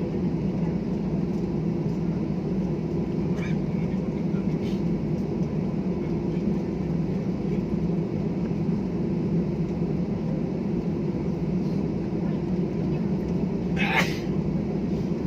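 Steady low cabin noise inside an airliner on the ground after landing, with a brief sharp sound about fourteen seconds in.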